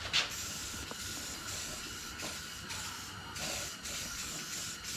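Aerosol spray paint can hissing in short, repeated bursts as parts are sprayed with a coat of paint.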